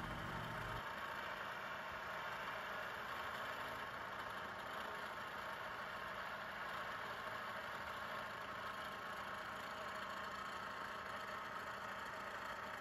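Vertical milling machine running steadily, its end mill taking a finishing pass across the tops of engine main bearing caps clamped in a vise. A low hum under the machine noise drops away within the first second.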